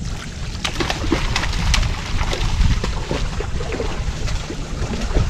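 Water splashing in short bursts as a hooked fish thrashes at the surface beside the boat, over a steady low rumble of wind on the microphone.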